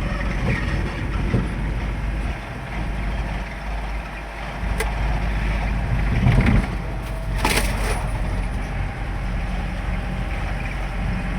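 Vehicle on the move: a steady engine and road rumble, with a louder bump about two-thirds of the way through and a brief rattle just after it.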